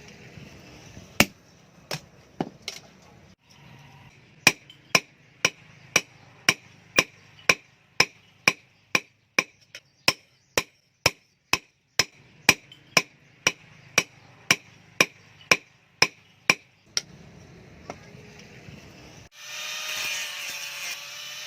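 Hammer blows on steel, each with a short metallic ring: a few scattered strikes, then a steady run of about two blows a second. A power tool starts up with a loud whirring about three-quarters of the way through, after the hammering stops.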